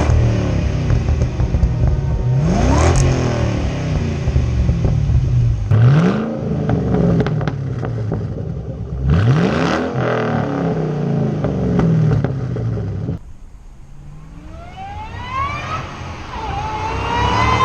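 Supercharged V8 of a Roush Mustang with its mufflers removed (straight-piped behind the stock catalytic converters), accelerating hard through the gears. The revs climb and drop at each upshift, roughly every three seconds. Near the end the sound drops off suddenly, and a quieter rising whine follows.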